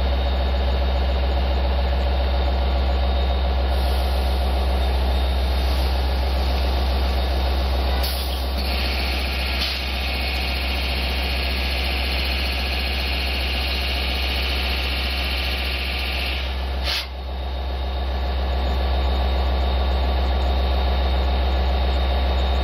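Diesel-electric locomotive (LIRR DE30AC) running at a standstill, a loud, steady low engine hum. From about eight seconds in, a loud hiss of air rides on top for some eight seconds, then stops with a brief sharp sound about seventeen seconds in.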